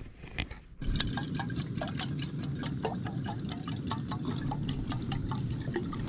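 Water being poured, starting about a second in and running steadily with small splashing clicks.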